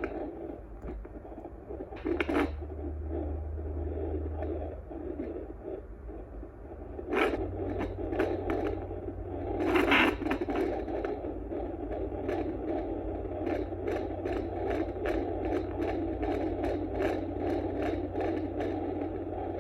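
Handheld fetal Doppler's speaker giving a steady hiss over a low hum, with loud scraping crackles as the gelled probe is slid over the belly in search of the heartbeat. In the second half a fast, regular pulse of a little over two beats a second comes through.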